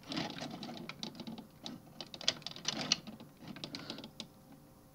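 Small clicks and taps of hard plastic toy parts, with the rustle of fingers handling them, as a hand piece is worked onto a Transformers figure's arm. The clicking is faint and irregular and stops about four seconds in.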